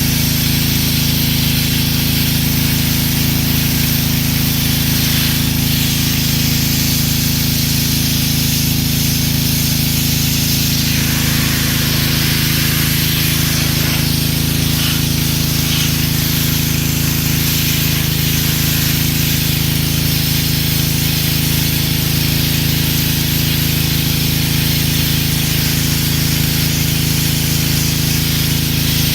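Gas-engine pressure washer running steadily, with the hiss of its high-pressure water jet spraying on concrete.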